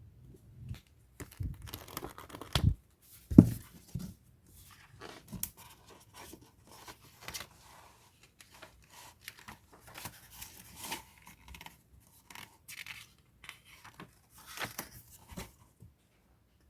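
Packaging being torn open and crinkled by hand while a book is unboxed: irregular tearing and rustling with small clicks, and two louder thumps a few seconds in.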